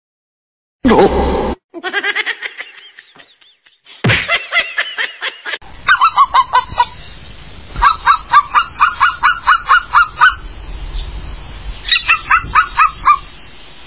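Animal calls. First come a few drawn-out pitched cries. From about six seconds in there is a fast run of short honk-like calls, about four a second, in three bursts.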